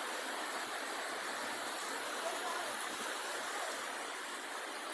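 Steady rush of water in a tidal creek, an even hiss with no breaks.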